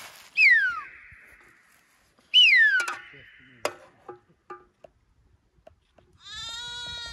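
Sheep bleating: two loud, high calls falling in pitch, then a steady bleat near the end. Between them come a few light clinks of a metal ladle in the cooking pot.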